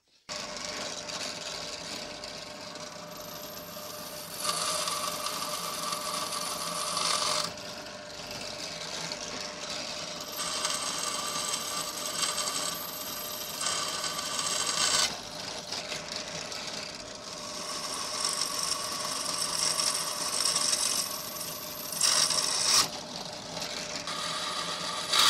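Bench drill press running steadily, its bit boring holes through the steel tang of a knife blank held in a drill-press vise. The cutting grows louder in three stretches of a few seconds each as the bit is pressed into the metal.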